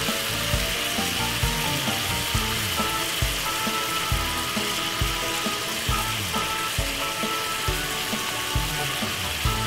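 Chicken and sliced peppers sizzling steadily in a hot stir-fry pan as sweet chili sauce is poured over them. Soft background music with a steady beat plays underneath.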